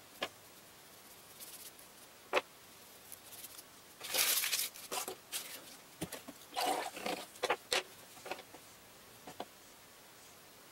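Art supplies handled on a wooden desk: two light taps, then a few seconds of paper rustling and small knocks as a scrap sheet is lifted off a plastic watercolour palette. There is one more light tick near the end.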